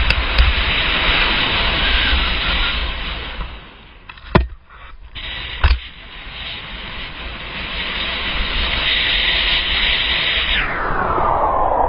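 Wind and snow rushing on an action camera's microphone during a ski run, with a quieter gap of about two seconds near the middle broken by two sharp knocks. The rush then builds again and turns duller near the end.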